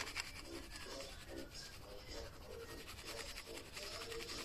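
Faber-Castell Oil Base pencil shading on tempera-coated cardstock: quick, faint, repeated scratchy strokes as dark tone is hatched in.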